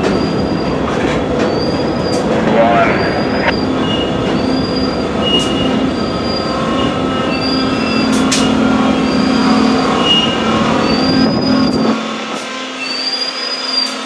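Freight train of covered hopper cars rolling past at close range: a steady rumble of wheels on rail with sharp clicks, and a short high wheel squeal about once a second. The deep rumble drops away near the end.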